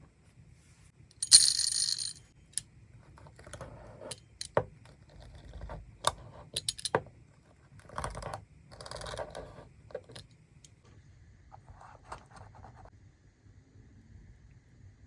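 Kinetic sand being handled with a hard tool. A loud scraping, hissing burst comes about a second in, followed by a run of sharp clicks and clinks of the tool against the container, between stretches of soft crumbling rustle.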